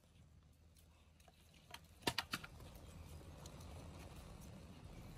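Dry firewood sticks clacking against each other and the clay stove as they are laid over a small, newly lit fire: a few sharp knocks about two seconds in and another near the end, over a low rumble.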